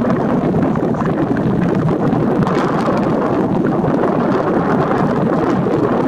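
Wind buffeting the camera's microphone: a loud, steady rushing noise that holds at one level without breaks.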